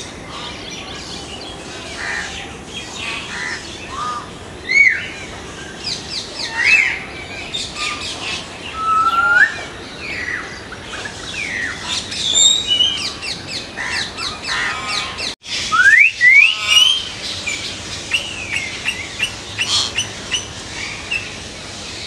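Hill mynas calling: a busy run of loud whistled notes, rising and falling glides and sharp clicks. About two-thirds of the way through, the sound drops out for a moment.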